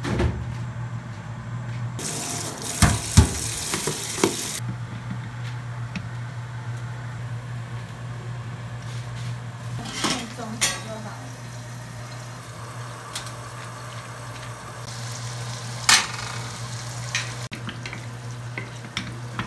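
Pan-frying a salmon steak in oil in a frying pan: a steady low hum under frying noise, with a loud hiss about two seconds in that lasts a couple of seconds. Several sharp clacks of a utensil against the pan, the loudest about three seconds in and again near sixteen seconds.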